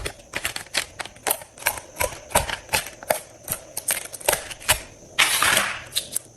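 Slime worked by hand, giving a quick, irregular run of sharp clicks and pops, with a longer squishy rush of air about five seconds in.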